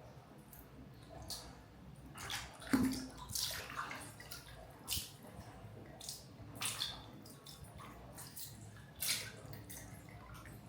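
Water splashing and dripping in short, irregular bursts, the loudest about three seconds in.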